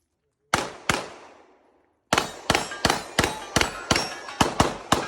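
Rapid gunfire from a USPSA stage. Two quick shots about half a second in, a pause of just over a second, then a fast string of about nine shots roughly three a second, each with a short ringing echo.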